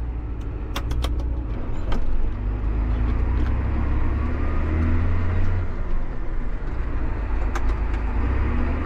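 John Deere 8300 tractor's diesel engine running with a steady low drone, heard from the cab, with a few scattered clicks and rattles.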